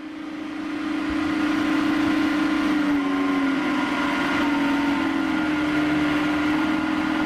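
Electric 'supercharger' air blower for fish-pond aeration, driven through an inverter, running with a steady hum and fainter higher whine. Its pitch dips and wavers slightly as its motor speed is turned down on the inverter.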